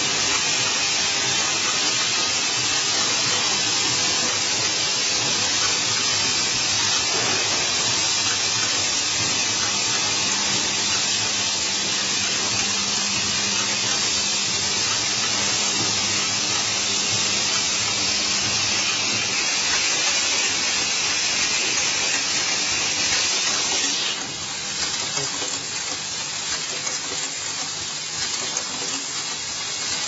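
Steady hissing noise of automated connector assembly machines and vibratory bowl feeders running. The hiss drops a little about three-quarters of the way through.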